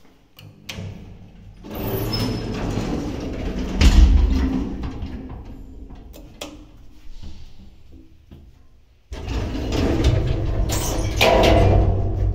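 Mogilevliftmash (MLM) passenger lift: its sliding doors run open, ending in a loud thud. About nine seconds in, the lift starts up suddenly and the car sets off upward, its drive and cabin running loudly.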